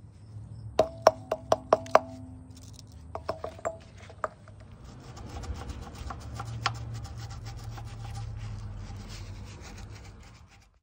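Metal parts or hand tools being worked: a quick run of sharp metallic clicks with a ringing tone, about four a second, then a few more clicks, followed by steady scraping and rubbing over a low hum.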